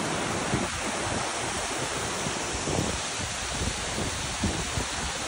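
Small woodland waterfall cascading over rock ledges: a steady rush of falling water.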